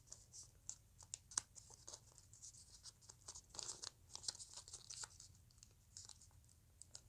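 Faint crinkling and light clicks of a sheet of origami paper being folded and creased between the fingers.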